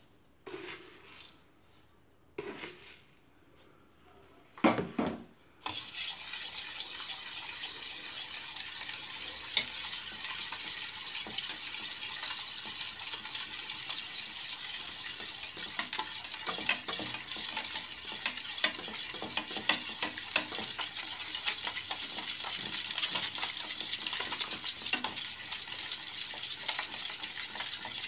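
A metal spoon beats raw eggs and sugar in a small steel bowl. After a few separate knocks, a fast, steady clatter of spoon on steel with a wet swishing starts about six seconds in and keeps going.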